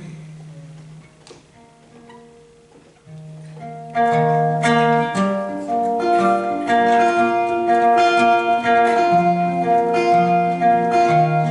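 Instrumental break between sung lines: a few faint held notes for about three seconds, then plucked-string accompaniment comes in louder about four seconds in, with a steady pattern of picked notes.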